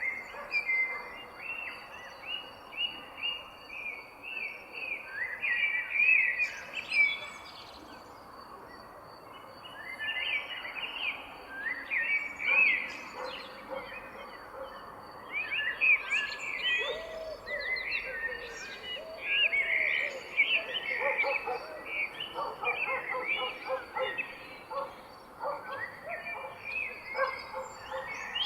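Several birds singing and calling, with many quick overlapping chirps and trills. Lower calls join about halfway through, over a faint steady high-pitched tone.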